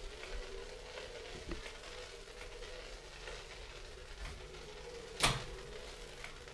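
Onewheel electric board rolling slowly over a hard office floor, its hub motor giving a steady faint hum under scattered light ticks. One sharp knock about five seconds in is the loudest sound.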